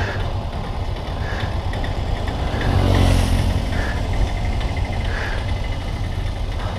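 Bicycle tyres rolling over a cobblestone street, picked up by a camera mounted on the bike: a continuous rough rumble that swells louder about halfway through.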